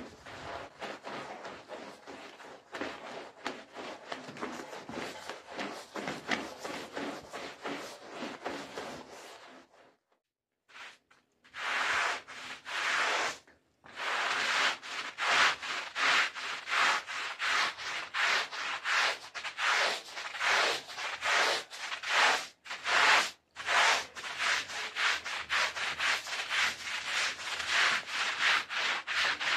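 Long-handled stiff-bristled brushes scrubbing a wet, soapy rug back and forth, a rhythmic swishing scrape at about two strokes a second. The strokes are softer at first, break off briefly around ten seconds in, and come back louder with a push broom.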